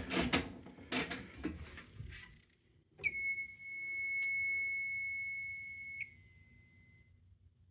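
Fire alarm system being reset: a few clicks, then one steady high-pitched electronic beep about three seconds long that stops abruptly.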